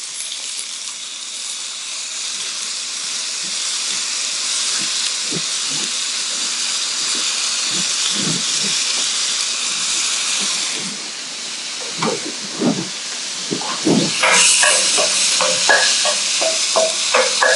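Cubed tofu frying in hot oil in a wok, sizzling steadily; the sizzle swells as fresh lime juice is squeezed into the pan. In the last few seconds a wooden spatula knocks and scrapes against the pan as the tofu is stirred.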